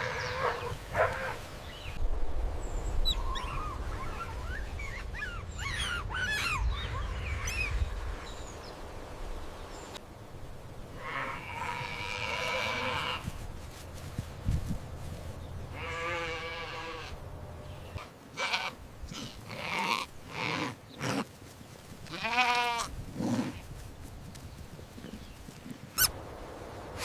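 Several different animal calls one after another, among them bleating.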